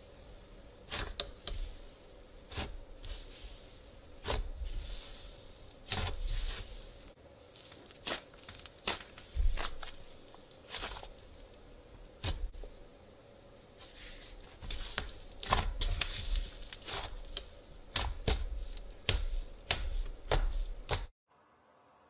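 Slime being squeezed, kneaded and stretched by hand: wet squishing with frequent irregular sharp pops and crackles. The sound stops abruptly near the end.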